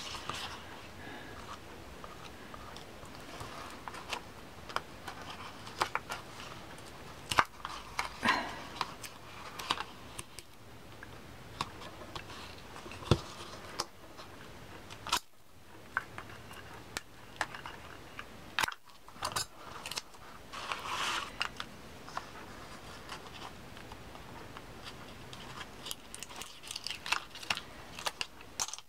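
Paper and cardstock being handled on a tabletop: scattered small taps and clicks with short rustles and crinkles as pleated paper is folded and pressed, and tape is pulled from a roll and stuck down.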